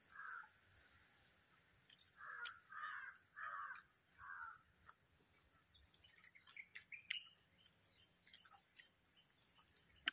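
A crow cawing, once at the start and then four times in a row about two to four and a half seconds in, over a steady high insect buzz. Louder insect trilling comes and goes, loudest near the end.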